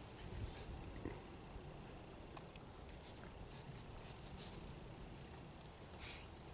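Faint, scattered patter of footsteps and scuffling on grass.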